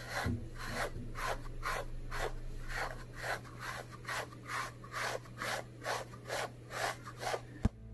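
Rhythmic rasping strokes, about three a second, of a wire-bristled grooming brush working through a Jindo dog's shedding undercoat, over a faint steady hum.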